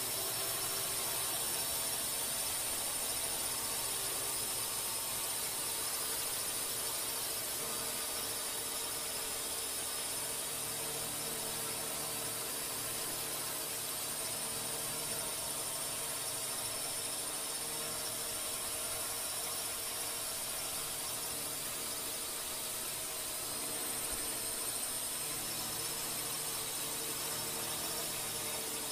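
Steady whine and hiss of a multirotor drone's motors and propellers, unchanging throughout, with no blast or impact heard.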